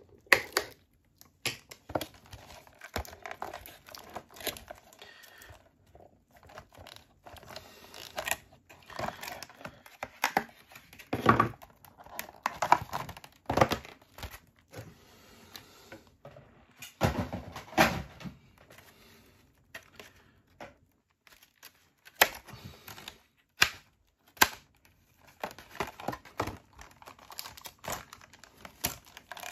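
Plastic wrapping and packaging of a trading-card booster display box being torn and crumpled by hand: irregular crinkling and tearing, with a few louder rips and snaps.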